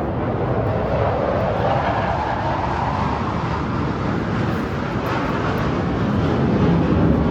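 Vertical band saw running, a steady mechanical noise with no pauses.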